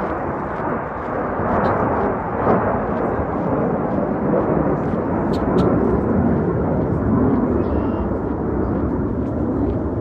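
Loud, steady roar of Snowbirds CT-114 Tutor jets flying past, swelling about two seconds in.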